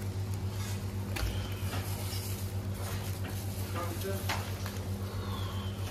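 Whole roast lamb being torn apart by gloved hands: soft tearing and a few light clicks as meat and skin come away. Under it runs a steady low electrical hum.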